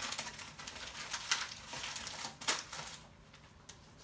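Paper rustling and crinkling as a microwave popcorn bag and a sheet of paper are handled, in a run of scratchy rustles over about three seconds with the sharpest one about two and a half seconds in.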